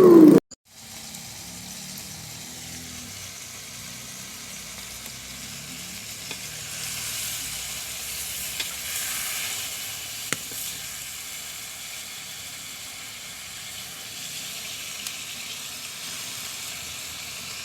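Steady rain falling, an even hiss, with a couple of sharp ticks around eight and ten seconds in.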